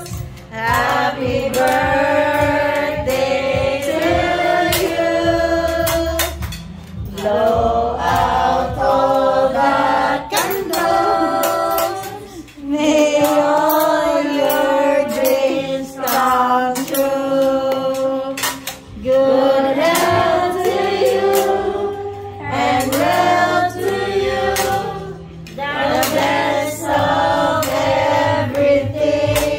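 Music with several voices singing in sung phrases over a steady low accompaniment.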